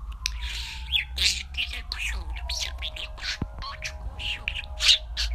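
Budgerigar chattering: a rapid run of short, high chirps.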